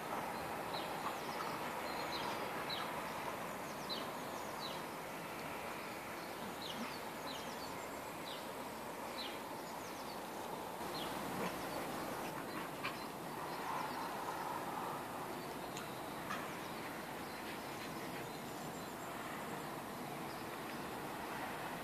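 Small birds chirping repeatedly in short, quick downward calls over a steady background hiss.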